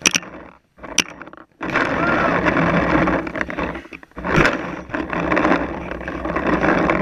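Three sharp cracks of paintball fire, the loudest at the start, about a second in and midway, over rough rustling and scraping handling noise from the marker-mounted camera against an inflatable bunker.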